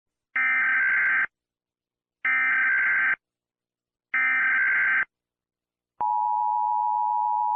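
Emergency Alert System SAME header: three identical bursts of warbling digital data tones, each just under a second long and about a second apart. About six seconds in, the steady EAS attention tone starts, heralding an elevated fire danger alert.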